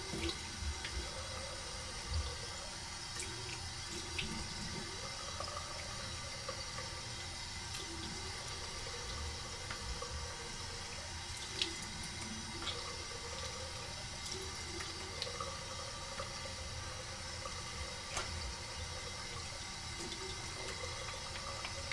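Cold water running steadily from a bathroom tap into a sink, with small splashes and drips as the face is rinsed after a wet shave.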